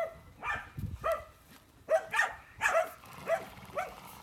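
Farm dog barking repeatedly: about eight short, sharp barks in quick succession, loudest around the middle.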